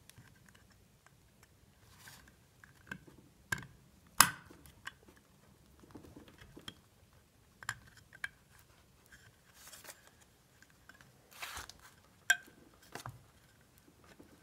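Small metal clicks, taps and scrapes as a coil spring is worked by hand into a 200-4R transmission's aluminium front-pump housing, with short rustles in between. The sharpest click comes about four seconds in, and another about twelve seconds in.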